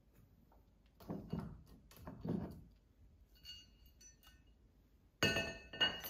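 Rustling handling noises, then a sudden sharp metallic clink that rings on about five seconds in, as the removed metal TV stand foot and its screws are put down on the wooden floor.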